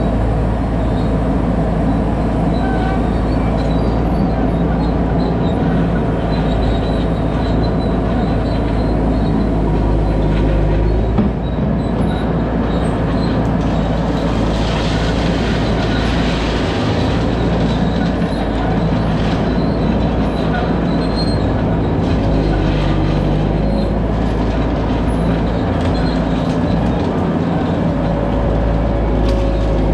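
A skid steer's engine running steadily as the machine works gravel, with scattered metallic clicks. Around the middle a grating noise swells for a few seconds.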